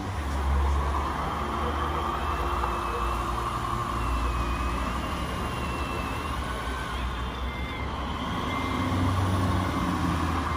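Scale RC construction trucks running, their sound modules playing truck engine noise, with a reversing beeper sounding a few short beeps near the end.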